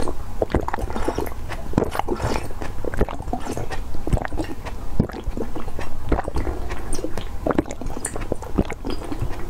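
Close-miked drinking: sipping and gulping a seed-filled drink from a glass spout, with irregular wet mouth clicks and swallows.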